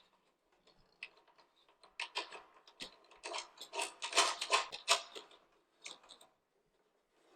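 Irregular runs of small, sharp clicks and taps as bolts and parts of a snowblower's chute mechanism are handled and fitted by hand. The clicking is densest in the middle.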